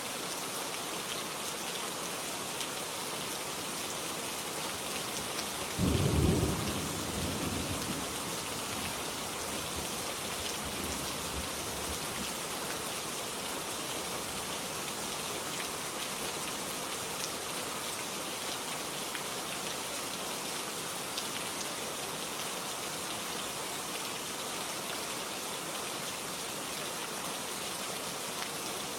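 Steady rain falling, with a short low rumble of thunder about six seconds in that fades within a couple of seconds.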